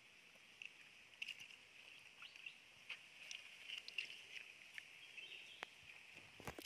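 Faint forest ambience: a steady, high chirping from wild creatures, broken by scattered sharp clicks and taps.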